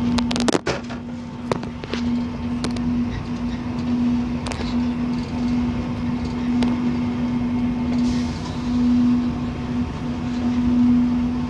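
Diesel locomotive running, heard from inside the cab: a steady droning hum over the low rumble of the train rolling along the track. A scatter of sharp clicks or rattles, mostly in the first few seconds.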